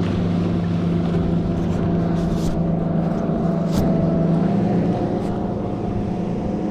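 A steady engine drone with a low hum that steps up slightly in pitch about four and a half seconds in, and a few faint clicks over it.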